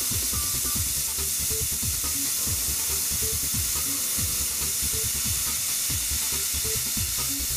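Carbide end mill milling titanium with coolant mist: a steady hissing, sizzling noise with irregular crackle underneath.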